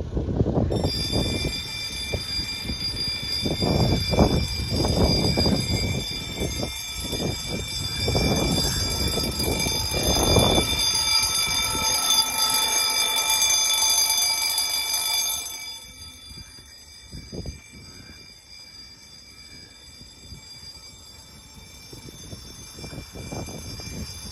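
Level crossing alarm: a twin-gong electric bell ringing continuously, with wind gusting on the microphone through the first half. About fifteen seconds in the bell stops while the train has not yet arrived: the crossing's audible warning timing out.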